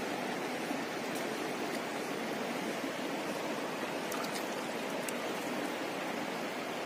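Shallow river water flowing steadily over stones and around a foot, with a few faint ticks on top.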